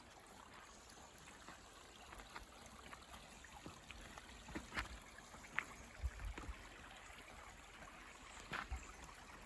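Small creek trickling over rocks, with scattered light clicks and a few low thumps.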